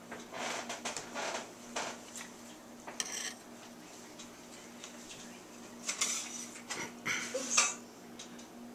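Metal kitchenware clinking and scraping in several short, irregular clusters, the loudest near the end, over a faint steady hum.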